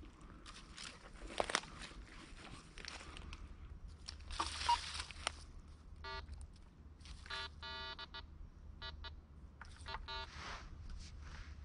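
Metal detector giving a series of short electronic beeps, starting about six seconds in, as its coil sweeps over the ground and picks up targets. Before that, footsteps crunch and rustle through dry leaf litter.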